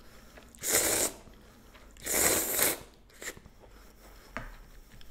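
Slurping cold chewy noodles, two slurps about a second apart with the second one longer, then chewing with a few faint mouth clicks.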